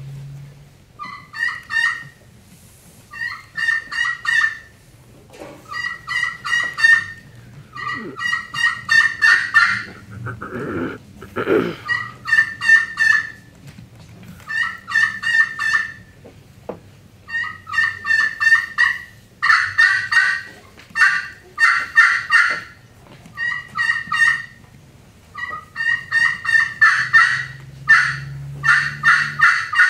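Friction turkey call, a pot call worked with a striker, playing kee-kee runs in imitation of a young wild turkey hen. There are about a dozen runs of short, rapid, high notes with short pauses between them.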